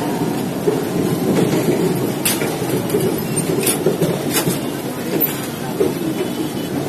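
Passenger train rolling out of the station, heard from inside the coach: a steady rumble of wheels on the track, with a few sharp clacks at uneven intervals as the wheels cross rail joints.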